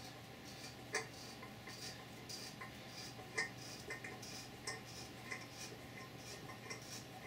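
Hand tap cutting threads into a drilled hole in plexiglass, giving faint, irregular clicks and ticks as it is turned, with two louder clicks about a second in and about three and a half seconds in.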